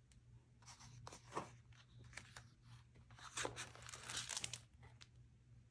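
Faint rustling and crinkling of a picture book's paper pages being turned by hand, in two short spells, about a second in and again from about three to four and a half seconds in.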